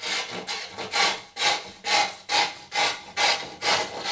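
Hand tool scraping along the edge of a drywall panel, about ten quick even strokes a little over two a second, trimming down a piece that fits too tight.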